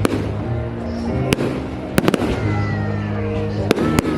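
Fireworks bursting in a display: a string of sharp bangs, a few about two seconds in and another cluster near the end, over music playing underneath.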